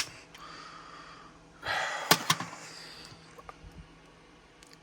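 A short breathy exhale about a second and a half in, with two sharp clicks of plastic model kit parts being handled, then a few faint ticks.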